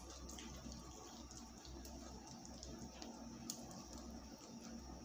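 Faint, scattered light clicks and handling noises of hands working garlic into a raw fish, with one slightly sharper tick about three and a half seconds in.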